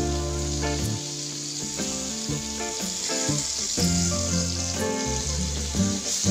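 Pieces of tape (fermented cassava) sizzling steadily as they fry in oil in a non-stick pan. Background music with held low notes plays underneath.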